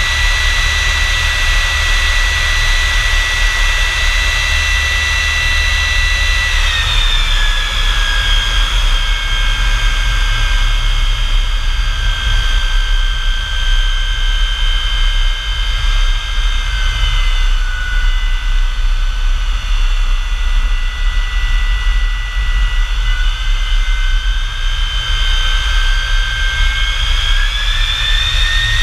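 F-100 Super Sabre's J57 turbojet running, a loud high whine over a steady low rumble. The whine drops in pitch about seven seconds in, dips a little further midway, and climbs back up near the end.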